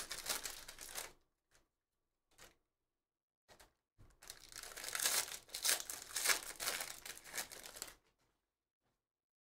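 Foil wrapper of a baseball card pack crinkling and tearing as it is pulled open, then a pause with a few faint ticks, then a longer stretch of crinkling from about four seconds in that stops abruptly about eight seconds in.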